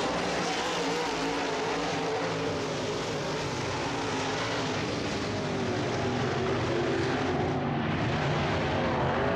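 Several dirt-track race cars running hard around a dirt oval: a loud, layered engine drone whose pitch wavers up and down as the cars go through the turns.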